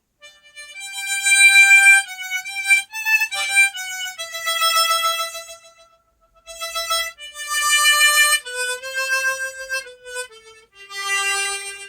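G-key harmonica playing a slow melody in single held notes, phrase by phrase, with a short break about six seconds in.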